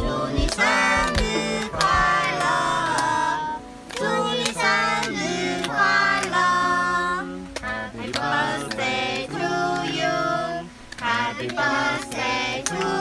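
Music: a song with a high singing voice over light instrumental accompaniment.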